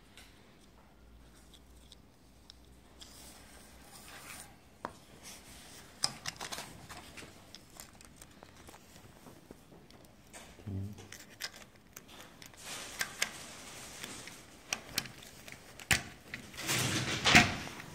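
Hands handling a black plastic end cap and thin cords on an aluminium mosquito-net profile: scattered small plastic clicks and short scraping sounds. A louder, longer scraping comes near the end as the cap is worked onto the profile.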